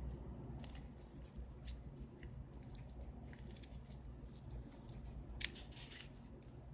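Faint small clicks and short scrapes of repair tools working on a smartphone's opened-up insides, with one sharper click about five and a half seconds in.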